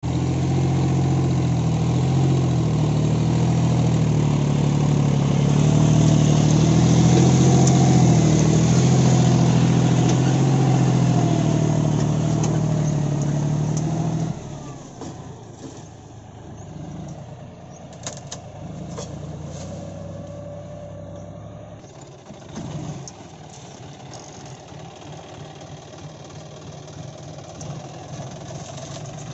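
John Deere 45 hp tractor's diesel engine running hard under load as its dozer blade pushes earth, its pitch rising a little for a few seconds. About halfway through the sound drops abruptly to much quieter, steadier engine running, with scattered sharp cracks.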